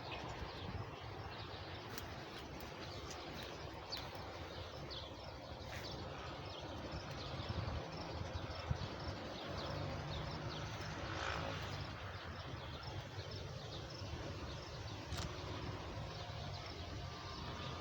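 Small wild birds chirping, many short high chirps repeated throughout, over a steady low outdoor background noise.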